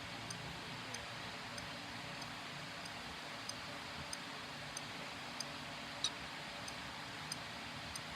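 Regular light ticking, about three ticks every two seconds, one tick about six seconds in a little louder, over a steady hiss.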